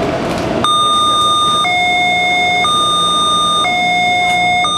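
Metro train door-closing warning: an electronic two-tone signal whose pitch switches between two notes about once a second. It starts a little under a second in and repeats over steady train noise.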